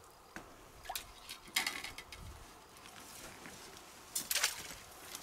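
Scattered rustles and light clatter as a collapsible mesh fishing keepnet with wire hoops is handled and pulled open, the loudest burst a little past four seconds in.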